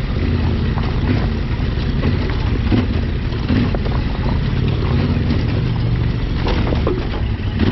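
Adventure motorcycle engine running with a steady low note while riding over loose rocks, with scattered knocks and clatter from the tyres and suspension on the stones.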